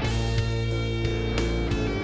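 Instrumental background music with guitar, its held chords shifting several times.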